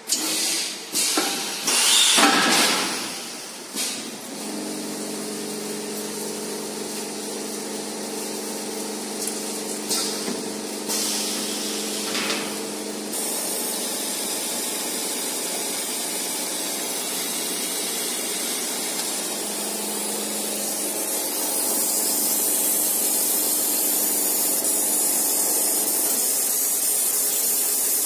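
Machinery of an automated wheel-hub laser-marking line: several loud knocks and bursts of air at the start, then a steady motor hum with several tones. Later comes a steady hiss that grows louder about two-thirds of the way through, while the fiber laser marks the wheel rim.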